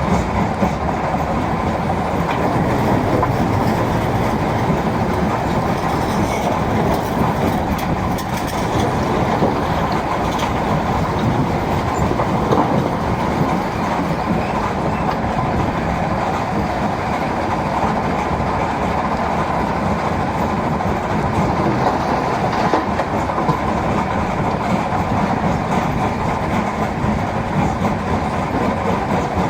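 Mobile stone crusher and excavator working together: a loud, continuous mechanical rumble and rattle as rock is fed in and crushed, steady throughout with no pauses.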